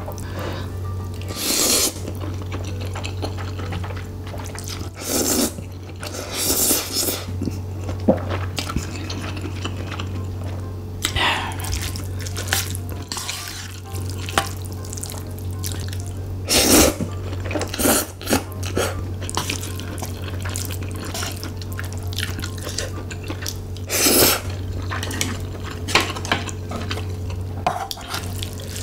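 Wooden spoon and chopsticks stirring and scraping sticky rice mixed with spicy octopus, tripe and shrimp in a metal pan: wet mixing noise broken by short, sharp scrapes and clicks against the pan every few seconds.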